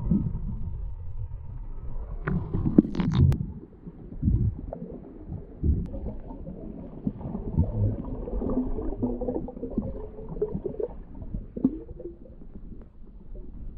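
Muffled underwater rumbling and knocking of water moving against a GoPro camera housing as it is carried down through a lake, with a few sharp clicks about three seconds in.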